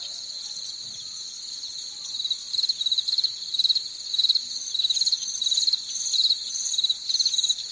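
Crickets chirping: a steady high-pitched trill, joined about two and a half seconds in by a pulsing chirp that repeats roughly twice a second.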